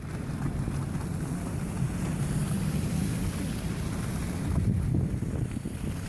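Outdoor city street noise: wind buffeting the microphone over a steady low rumble of traffic.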